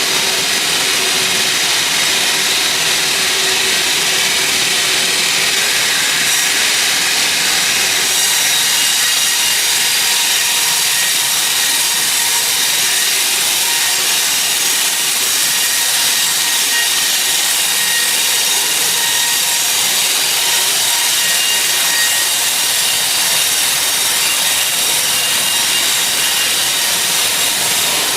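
Sawmill saw cutting steadily through a teak log: a loud, even rushing noise with faint high steady tones, unchanged throughout.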